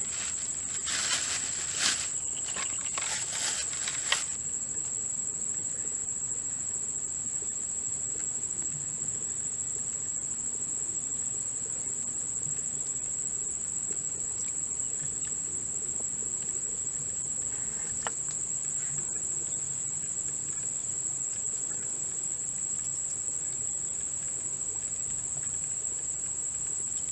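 Insects chirring in one steady, high-pitched drone. A few rustling clicks are heard in the first four seconds.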